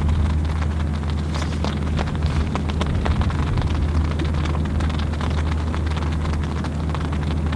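Heavy rain, its drops ticking rapidly and irregularly close to the microphone, over a steady low drone.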